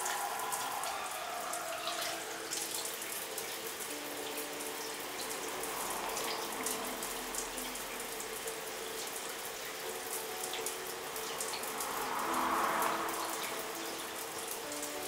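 Water running steadily: a continuous splashing hiss with fine droplet ticks and a faint steady hum underneath.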